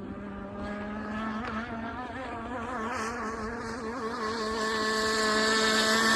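Gas two-stroke engine of a Zenoah-powered RC hydroplane running at speed on the water, its pitch wavering slightly. It grows steadily louder as the boat comes closer.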